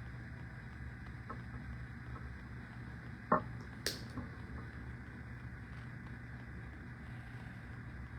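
Steady low hum of room tone, broken a little before the middle by two short knocks about half a second apart: the first duller and louder, the second a sharper click.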